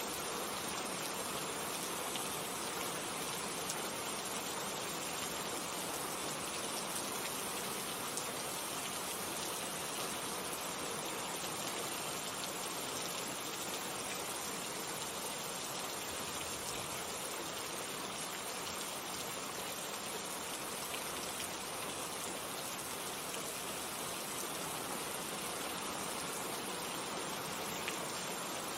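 Steady rain falling, with individual drops pattering on a surface.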